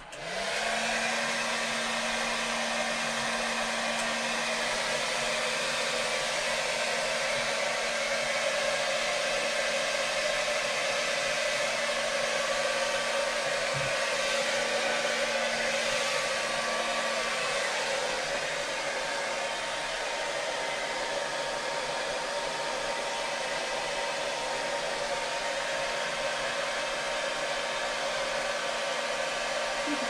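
Handheld hair dryer switched on, its motor rising briefly in pitch as it spins up, then blowing steadily with a low hum under the rush of air.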